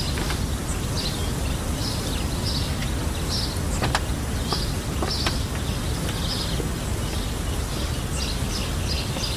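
Outdoor ambience: small birds chirping in short, repeated high calls over a steady low background rumble.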